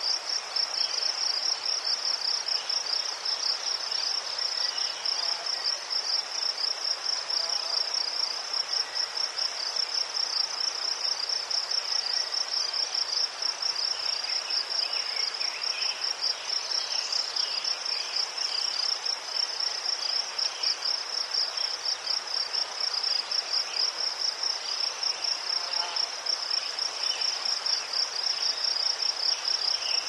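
Crickets chirping: one high-pitched, rapidly pulsing trill that goes on without a break, over fainter, lower chirps of other crickets.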